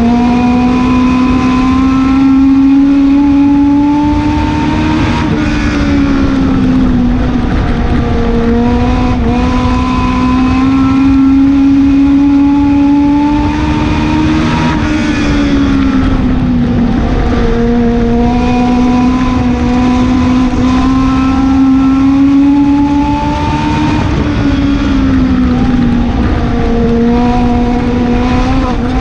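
Legend car's Yamaha four-cylinder motorcycle engine at racing speed, heard from inside the cockpit. Its pitch climbs slowly, then drops and comes back up three times about nine seconds apart as the driver lifts off and gets back on the throttle for the turns, lap after lap.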